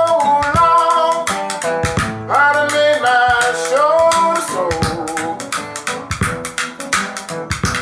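Music: a song with guitar and a singing voice over a regular beat, the sung melody carrying the first half before the guitar and beat go on alone.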